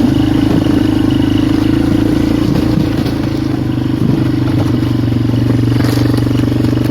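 Polaris Magnum 425 ATV's single-cylinder four-stroke engine running at a steady pitch as the quad rides over creek ice, with a few clatters and scrapes from the machine and ice.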